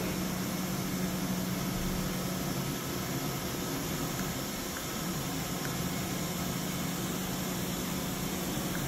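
MultiCam CNC router running: a steady rushing noise from its air and dust-collection system, with a steady hum underneath that fades out for about three seconds midway and then comes back.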